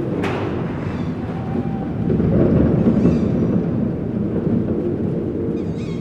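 Dark horror sound-effect soundscape: a low rumbling drone with a sharp hit just after the start that trails off, swelling louder about two to three seconds in.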